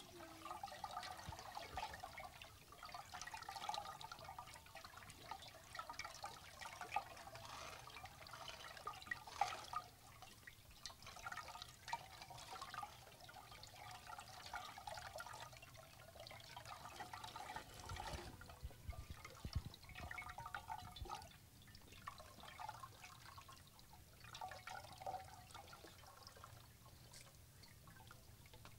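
Faint, scattered splashing, trickling and dripping of water as many hands swish and lift water in plastic basins.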